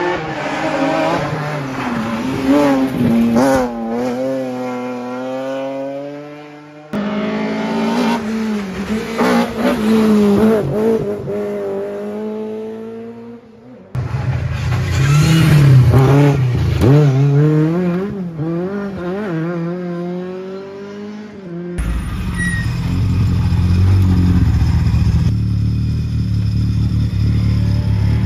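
Rally cars' engines revving hard through stage corners, the pitch sweeping up and down with throttle lifts and gear changes, in three passes cut off abruptly one after another. Near the end, a Lada rally car's engine idles with a steady low rumble.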